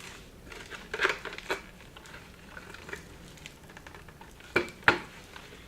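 Handling noises from working a stuffed animal toy apart by hand: light rustling and scattered small clicks, with two sharper clicks close together near the end.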